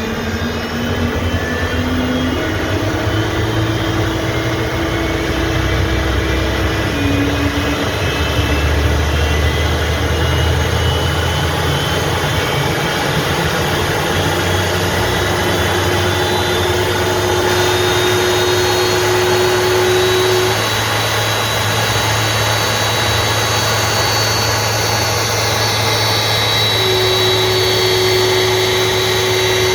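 Boeing 767-300F jet engine starting up. Its whine climbs in pitch over the first few seconds, then holds as a steady high whine over a loud, continuous rushing noise as the engine settles toward idle.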